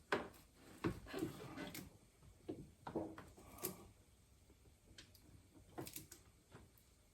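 Faint scattered clicks and light knocks of parts being pushed and handled inside a car door while its lock mechanism is worked loose.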